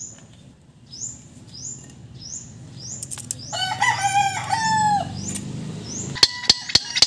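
A rooster crows once near the middle, over a small bird's repeated high chirps. In the last second come about four sharp, ringing metal taps on the steering rack housing as the old steel bushing is being knocked out.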